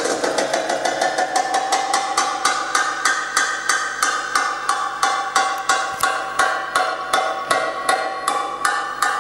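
Dance music: a quick, even beat of sharp percussive strikes, about five a second, over a sustained melodic line.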